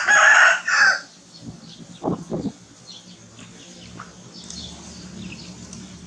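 A rooster crows once, loudly, in the first second. A few short lower calls follow about two seconds in, with faint high bird chirps over a low steady hum.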